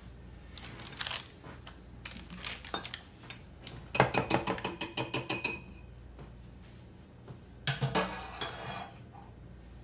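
Kitchen utensils clinking and knocking against a bowl and dishes, with a quick run of about a dozen rapid metallic clinks about four seconds in and another short clatter near the end.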